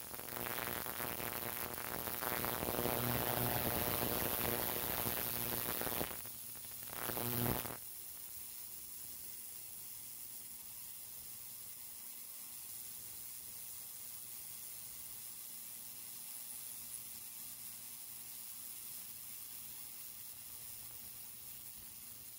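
Digital ultrasonic cleaner running with jewelry and coins in its water bath: a steady electric buzz under a hiss. It is louder for the first eight seconds, swells briefly, then drops to a fainter, even hiss and hum.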